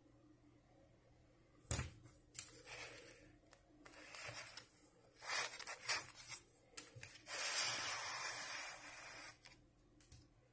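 Handling noise from a thin plastic plant pot being gripped and turned by hand: a sharp knock about two seconds in, then short scrapes and rustles, and a longer stretch of rustling scraping about seven seconds in.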